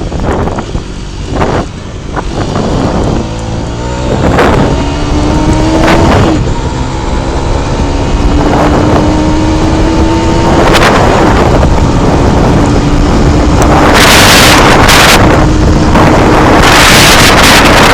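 Mondial HPS 125i's single-cylinder engine pulling under way, its note climbing as the bike speeds up and then holding steady. Wind buffets the helmet-mounted microphone throughout and grows to a loud rushing near the end.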